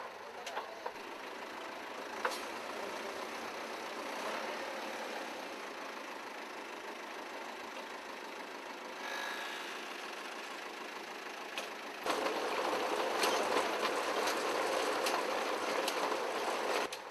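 Tractor pulling a broad bed former-cum-seeder through tilled soil: steady engine and machinery noise with a few sharp clicks. It gets abruptly louder about twelve seconds in and falls back just before the end.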